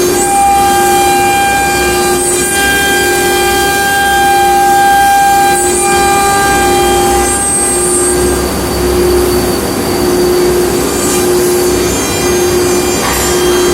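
CNC router spindle of a nesting machining centre running and cutting wood panel. It gives a steady, high whine that stops about seven seconds in, over a lower hum that swells and drops every second or so as the cutter works.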